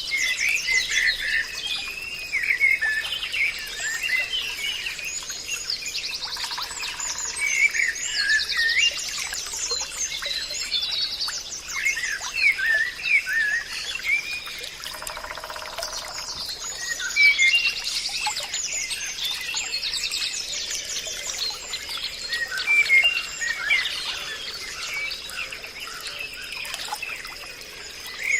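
Many songbirds chirping and singing at once, a dense forest chorus of overlapping short calls and rapid trills, with a steady thin high tone underneath.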